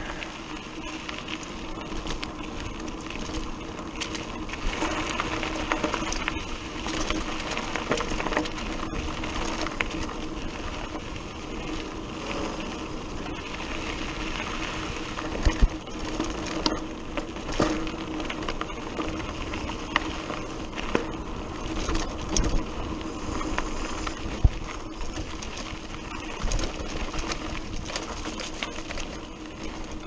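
Mountain bike on a dirt road, the rear freehub giving a steady ratcheting buzz while the rider coasts, over a rattle of tyres on loose gravel and the bike's parts, with sharp knocks from bumps, the loudest about fifteen and twenty-four seconds in.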